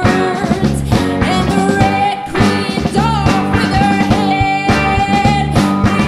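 Live rock band playing: a woman singing lead over electric guitars, bass guitar and a drum kit.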